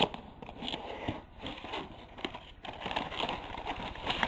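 Packaging around a replacement circuit board being handled and opened, crinkling and rustling in irregular bursts.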